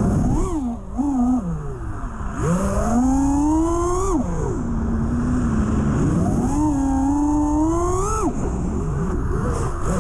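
A KinFPV Atlas5 V2 5-inch FPV quad's Cricket 2306 1750kv brushless motors and T-Motor 5147 props whine, the pitch sweeping up and down with the throttle. Twice it climbs for about two seconds and then drops abruptly, about four and eight seconds in, with a steady stretch between.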